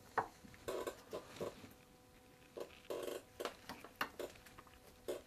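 Disposable gloved fingers working a rubber tire onto a small caster wheel: short faint scuffs and squeaks of glove on rubber, with a few light clicks.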